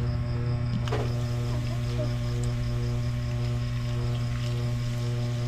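A steady low hum with evenly spaced overtones, unchanging throughout, with a short click about a second in.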